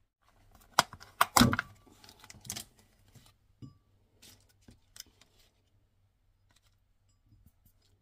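Handling noise at a kitchen counter: a few sharp knocks and a heavier thump in the first two seconds, the loudest about a second and a half in, then clicks and crackles from a thin clear plastic sushi tray as rolls are lifted out onto a plate, fading to faint ticks.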